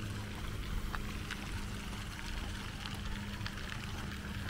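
Pond fountain jet falling back onto the water: a steady splashing hiss, over a steady low hum.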